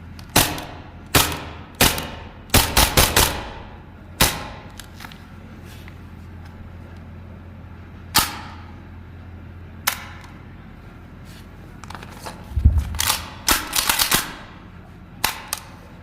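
Tokyo Marui P226E2 gas blowback airsoft pistol firing, each shot a sharp crack with the slide cycling. The shots come singly and in quick strings of several, with a longer gap in the middle.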